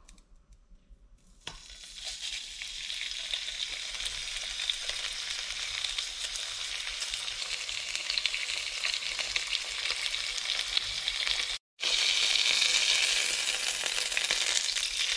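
Skewered, rolled garfish fillets sizzling in hot oil in a frying pan, starting suddenly about a second and a half in as they go into the oil, with fine crackling throughout. After a brief break near the end the sizzling is louder.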